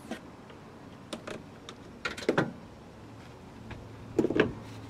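Knocks and clatter of a 12-volt oil extractor pump being picked up and lifted off the engine cover by hand, in three short bursts, the loudest near the end.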